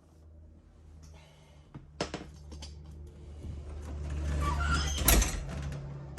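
Metal clicks and scraping from a bus door latch being worked into place, then a single sharp clunk just after five seconds in as the latch catches.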